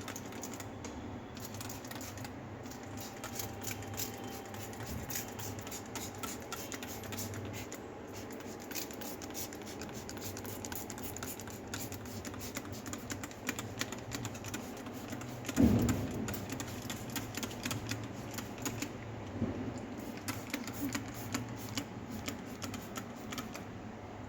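Detergent spray bottle being sprayed again and again inside a dishwasher, a run of many light irregular clicks, with one louder thump a little past the middle.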